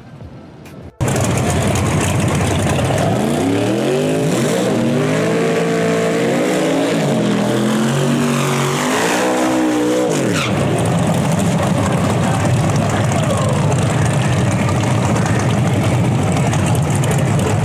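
Big-block Chevy V8 of a small-tire nitrous S10 drag truck revving hard through a burnout, its pitch climbing and dropping in steps as the rear tires spin. About ten seconds in it settles into a steady, loud, deep engine rumble.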